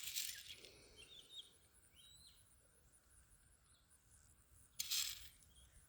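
Faint background with a bird chirping briefly a few times, broken by two short rustling noises, one at the start and one near the end.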